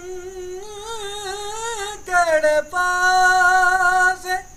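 A man singing a kalam (sung devotional poetry) unaccompanied in a high voice, holding long, ornamented notes with short breaks for breath. The phrase ends near the end, leaving a steady high insect trill underneath.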